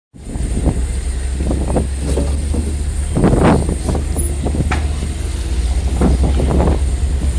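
Ferry engine running with a steady low rumble, with louder irregular bursts over it.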